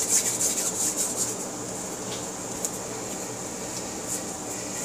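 Quick rhythmic rubbing for about the first second, then a steady low background hum with a faint click near the middle.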